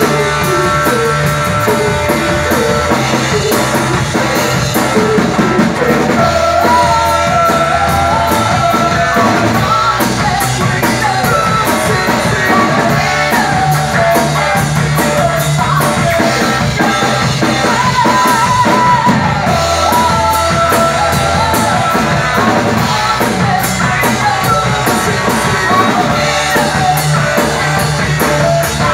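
Live rock band playing loudly: sung vocals over electric guitar and a drum kit, with cymbals struck in a steady beat.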